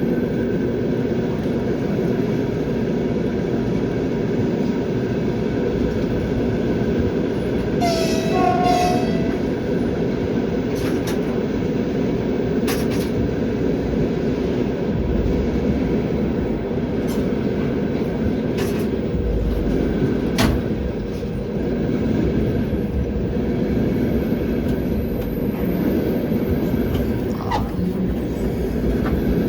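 Passenger train's wheels running on the rails, heard from on board: a steady rumble with occasional sharp clicks. A brief high pitched tone sounds about eight seconds in.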